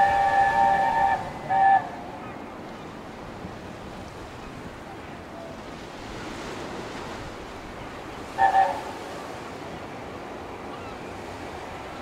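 Three-note chime whistle of LNER A4 steam locomotive 60007 'Sir Nigel Gresley': a long blast cuts off about a second in and is followed by a short toot, then two quick toots come about eight seconds later. Under it runs a steady rush of wind and surf.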